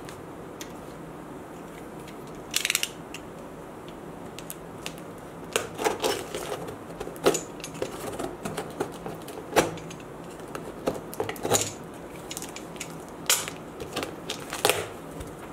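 A knife slitting the packing tape along the seam of a cardboard box, with irregular sharp scrapes, crackles and clicks of tape and cardboard being cut and pulled, starting about two and a half seconds in.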